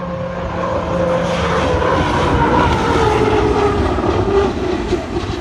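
Unlimited hydroplane's turbine engine running flat out on a qualifying lap: a loud whine that builds and then slides lower in pitch as the boat goes past.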